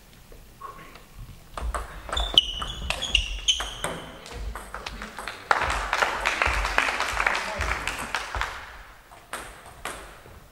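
Table tennis rally: the ball clicks and pings in quick succession off the bats and table for about two seconds. A few seconds later the spectators react to the point with a burst of voices and clapping.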